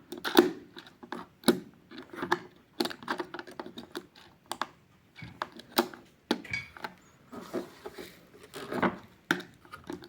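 Hands working at a quartz wall clock, fitting a battery into its compartment: irregular clicks and small knocks, a few to several a second.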